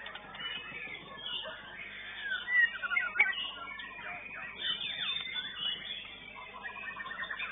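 Caged white-rumped shama (murai batu) singing a fast, varied contest song of whistles, trills and rattling notes, mixed with other songbirds singing at the same time. A couple of sharp, louder notes come about three seconds in.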